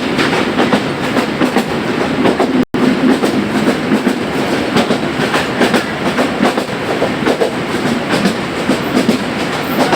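Moving train, wheels clattering steadily over the rail joints. The sound cuts out for an instant about two and a half seconds in.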